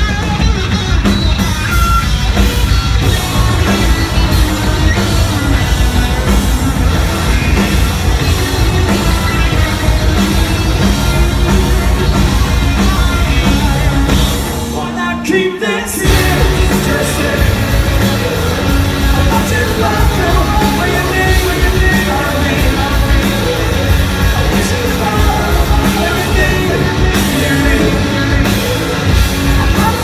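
Rock band playing live: electric guitar, electric bass and drum kit with singing, loud and dense. About halfway through the band briefly thins out to a held note, then comes back in at full volume.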